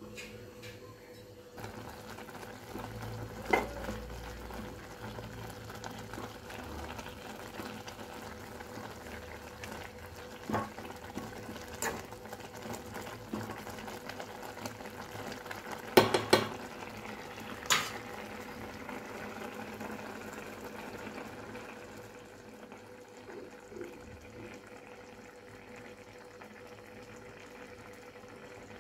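Vermicelli simmering and bubbling in water in a steel kadai, starting about two seconds in, while a metal spoon stirs it and clinks against the pan several times. The loudest clinks come about halfway through, and a faint steady hum runs underneath.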